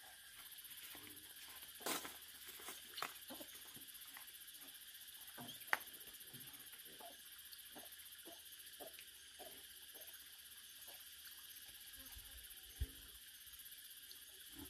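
Scattered light clicks and knocks, the sharpest about two seconds in, near six seconds and near thirteen seconds, over a steady high-pitched background drone.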